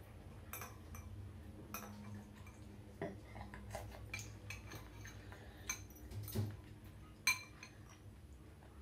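A metal spoon and chopsticks clink and scrape against a glass bowl as the broth is stirred and scooped. The light clinks are scattered, with one sharper clink near the end.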